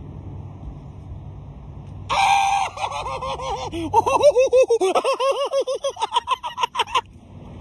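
A person's voice: a short held yell about two seconds in, then a long run of rapid, pitched laugh-like syllables, about four or five a second, that stops suddenly near the end.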